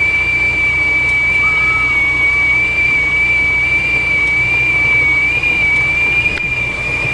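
Whistling kettle at the boil: one steady, high-pitched whistle holding the same pitch, over a low steady hum.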